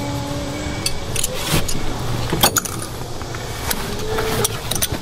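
Metal hand tools clinking and tapping against metal, a scatter of sharp clinks, over a low steady rumble.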